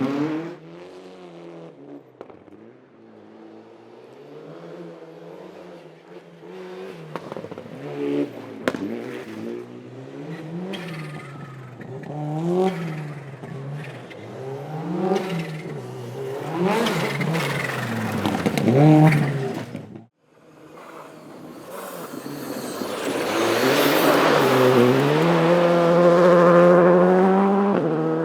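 A rally car's engine revving hard and dropping back again and again through gear changes and corners, coming closer and getting louder. It cuts off abruptly about two-thirds of the way in. Then a rally car at full throttle approaches and holds high revs, loudest near the end.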